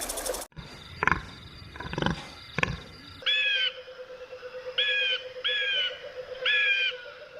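Bird calls: three short sharp calls, then four clear, evenly pitched calls, each under half a second, with a steady faint hum beneath.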